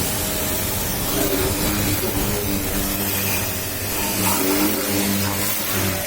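High-pressure washer running, its water jet spraying with a steady hiss over the motor's hum.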